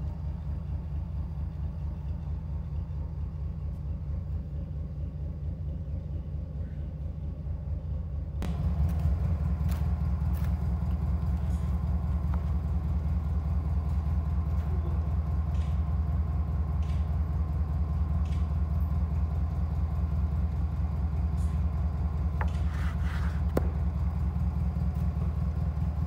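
An engine running steadily with a low pulsing hum. About eight seconds in it jumps louder and brighter, and a few faint clicks and knocks come over it near the end.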